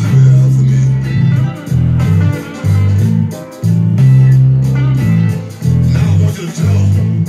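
Electric bass guitar playing a repeating bass line: held low notes in phrases of about a second each, with short breaks between them.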